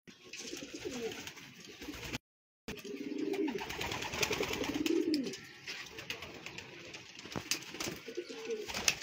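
Domestic pigeons cooing: repeated low, rolling coos, with a brief dropout about two seconds in and a few sharp clicks near the end.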